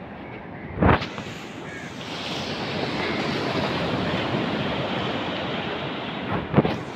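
Sea surf washing onto a sandy beach, a steady rush that swells after about two seconds. Two brief loud thumps, about a second in and near the end, cut through it.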